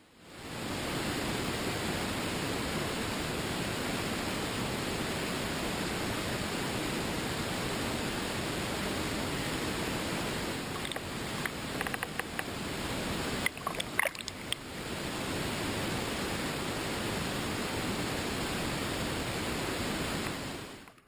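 Steady rushing water, an even hiss with no engine tone, with a few clicks and knocks about halfway through.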